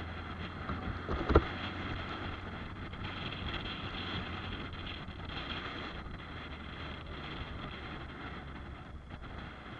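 Motorcycle riding slowly along a street: steady wind and road noise over a low engine hum, with a single sharp knock about a second in.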